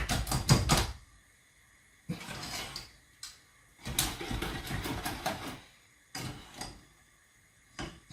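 Hand whisk beating egg yolks and sugar in a bowl: rapid, even strokes for about the first second, then the whisking stops and starts in several short bursts with pauses between them.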